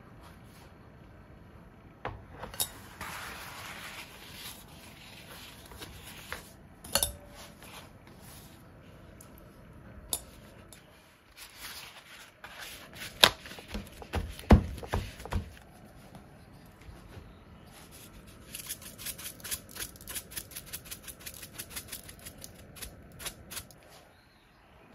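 Kitchen handling sounds as raw shrimp are drained in a stainless mesh strainer and glass bowl, patted with paper towel and laid into a stainless steel tray: rustling, a few sharp knocks and clinks about halfway through, and a quick run of light ticks near the end.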